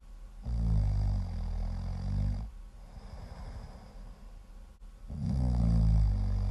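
Loud snoring: two long snores, each about two seconds, the first starting about half a second in and the second about five seconds in, with quieter breathing between.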